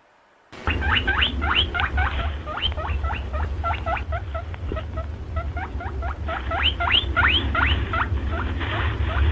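Rabbits squeaking: many short, high, rising squeaks, several a second, starting suddenly about half a second in, over a steady low rumble.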